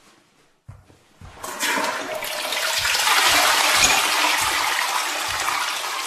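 Toilet flushing: after a couple of faint clicks, a loud rush of water starts about a second and a half in and keeps running.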